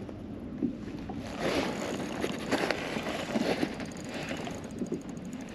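Water splashing and sloshing at the surface as a hooked fluke thrashes beside a kayak while it is reeled in, in short irregular bursts over wind buffeting the microphone.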